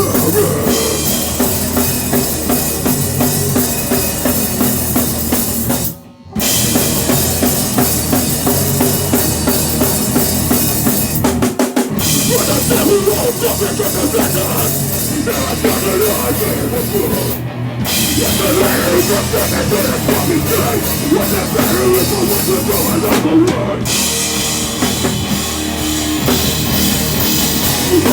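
Live heavy rock band playing loudly, with the drum kit, bass drum and cymbals prominent. The whole band stops short for a moment about six seconds in, and there are brief breaks roughly every six seconds after that.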